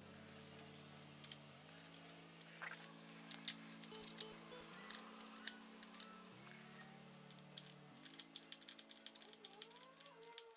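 Quiet background music of sustained chords that change every second or two, with scattered faint clicks and ticks of hand tools working on the mirror nuts.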